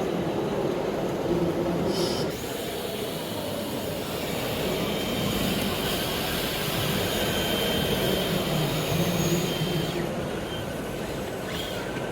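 Electric motors and hydraulic pumps of scale RC construction machines running steadily, with a thin high whine in the middle.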